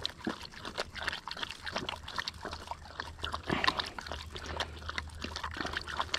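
A tracking dog lapping water from a cupped hand, quick irregular wet laps, while water trickles from a plastic bottle into the hand.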